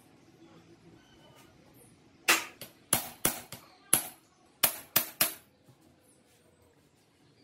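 About eight sharp metallic strikes on a hand impact driver set in a crankcase screw of a Minsk 125 engine, knocking the rusted screw loose; the blows come in a loose run starting about two seconds in and ring briefly.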